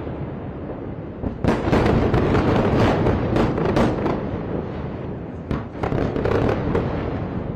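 Secondary explosions at an airstrike site: a rapid run of crackling bangs begins about a second and a half in and lasts a couple of seconds, with a second cluster near the end, over a steady low rumble.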